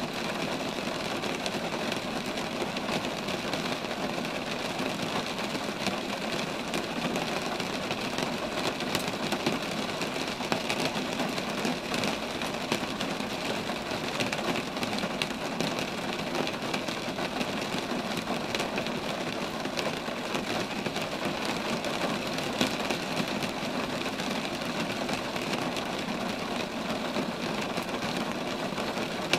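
Steady rain falling on roadside trees: an even hiss dotted with many small drop ticks, with no let-up.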